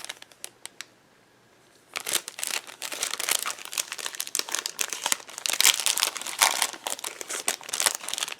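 A pack of patterned craft paper being handled and leafed through, its sheets rustling and crinkling. After a few faint ticks and a short lull, dense rustling starts about two seconds in.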